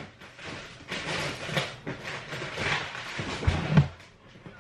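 Food being put away in a refrigerator: rustling of packaging and items shifted about on the shelves, with two low knocks a little before the end.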